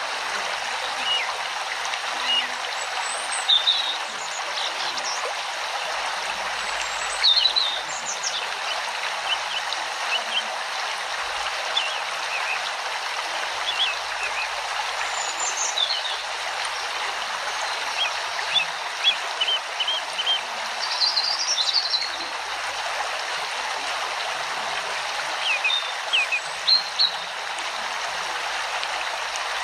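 Steady running water like a stream, with many short, high bird chirps scattered throughout.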